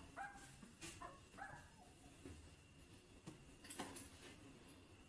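Faint whimpering of newborn puppies: a few short, high squeaks in the first two seconds, with a couple of soft knocks later on.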